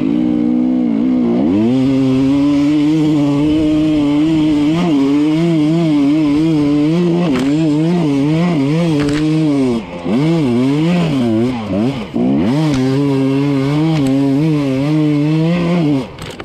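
Enduro dirt bike engine revving up and down under load while riding and climbing a steep forest slope. Brief drops off the throttle come about ten and twelve seconds in and near the end.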